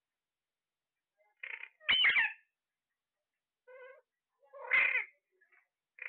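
Caged ring-necked parrots calling: a handful of short, separate calls, with two louder ones about two seconds in and just before five seconds.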